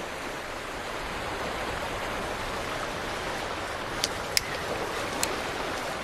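Steady rushing seaside noise of surf and wind on a beach. Three short, sharp clicks come in the last two seconds.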